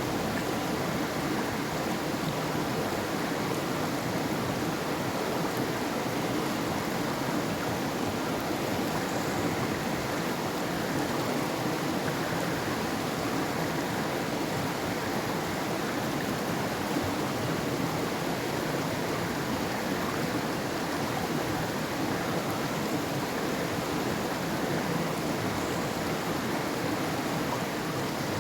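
River water flowing: a steady, even rush that does not rise or fall.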